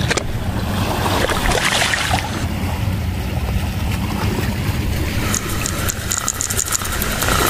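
Steady wind buffeting the microphone, with seawater washing against shoreline rocks.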